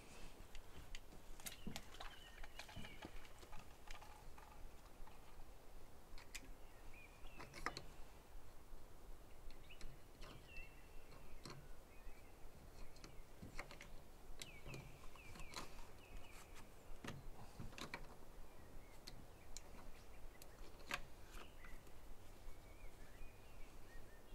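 Scattered light clicks and knocks of blue plastic compression fittings being handled and screwed onto black plastic water pipe, with faint bird chirps now and then.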